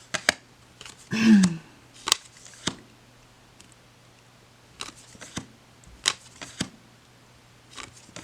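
Laminated-feeling tarot cards handled one after another as the deck is gone through, giving sharp clicks and snaps spaced roughly half a second to a second apart. A short falling vocal hum comes about a second in.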